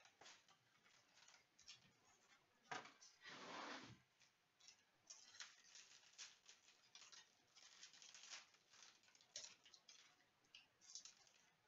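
Faint crinkling of a foil trading-card pack wrapper and the light clicks and slides of cards being handled, with the longest crinkle about three seconds in.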